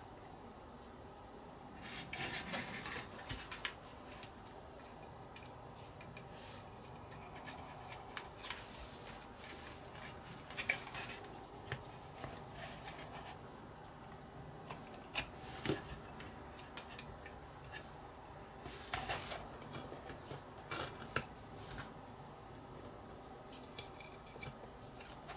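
Masking tape being peeled off a painted plastic model hull: soft crinkling rustles and light clicks of tweezers against the plastic, in irregular short bursts, the busiest stretch about two seconds in.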